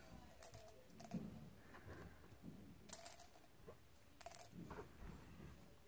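Faint handling of small rose-gold flat drawing pins: a handful of brief metallic clicks and clinks over a light rustle of fingers and packaging.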